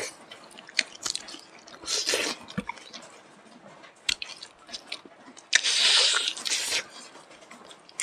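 Close-up eating sounds of two people eating smoked pork and rice by hand: wet chewing and lip smacking with scattered small clicks, and a louder rush of noise lasting about a second at about five and a half seconds in.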